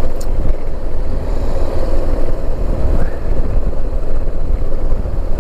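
BMW motorcycle under way at a steady cruise: a continuous low rumble of engine and wind.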